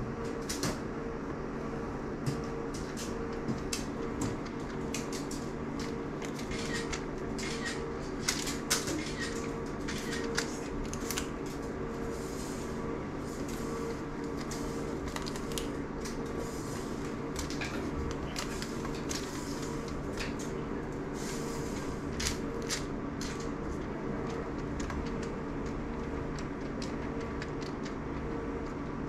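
A steady room hum with many light clicks and taps scattered over it, most frequent in the first half.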